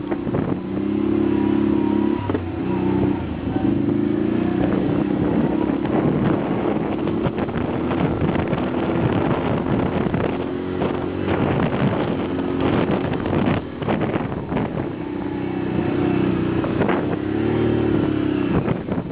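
Can-Am off-road vehicle's engine running under load from on board, its revs rising and falling throughout, with short knocks and rattles from the ride over rough sand tracks.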